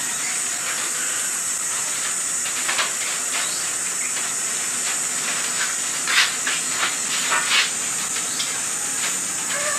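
Steady hiss of a lit gas stove burner, with a few scattered crackles and ticks from the lidded pot above it, where punk wood is being charred and is still smoking.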